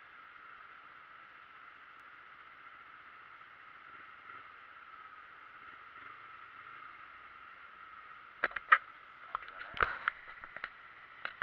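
A faint steady hiss, then from about eight seconds in a run of sharp knocks and clatters on the microphone as the camera is handled and bumped.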